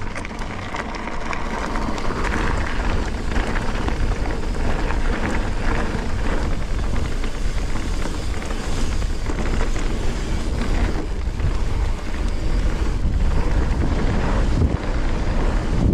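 Wind buffeting the action-camera microphone while a mountain bike rides downhill, with the tyres rolling over a dirt trail and the bike clattering over bumps. The sound is a loud, steady rush with many short crackles.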